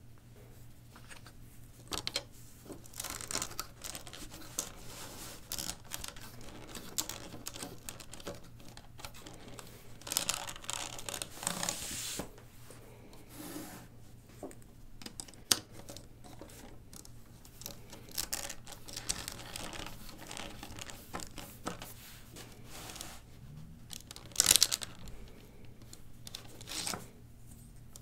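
Small plastic LEGO plates and bricks clicking, clacking and scraping against one another in scattered bursts of clicks and rustling as they are pushed into place. There is a sharper double clack about three-quarters of the way through, and a faint steady hum underneath.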